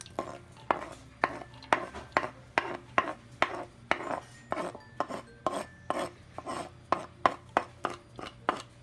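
Metal utensil scraping diced raw onion across a wooden cutting board into a bowl, in repeated strokes about twice a second.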